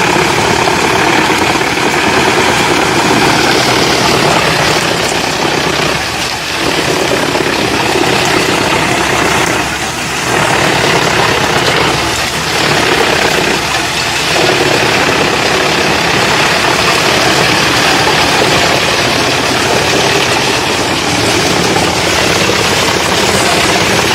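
Engine of a large wood chipper running steadily, with the dense noise of the machine at work and a few brief dips in level.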